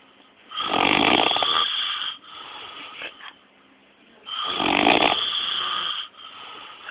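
A sleeping man snoring: two long, loud snores about four seconds apart, each trailing off into a quieter breath.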